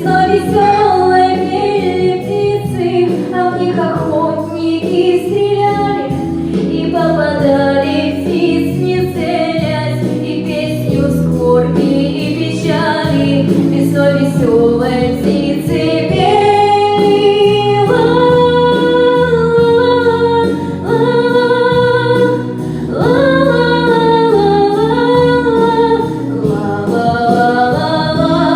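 Female voices singing a slow song over sustained backing music, with long held notes.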